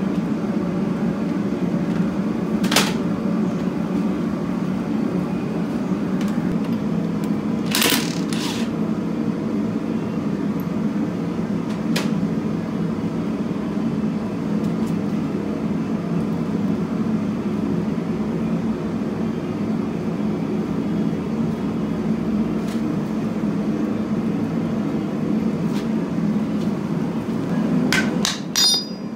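Steady mechanical hum throughout, with a few single sharp metal knocks from tools on a tractor's clutch and flywheel. Near the end comes a quick run of hammer blows on a steel drift set in the loose flywheel.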